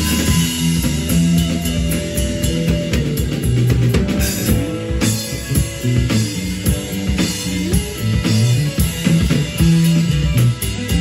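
Live rock band playing: electric guitars over bass guitar and a drum kit, with bending guitar lines and steady drum hits.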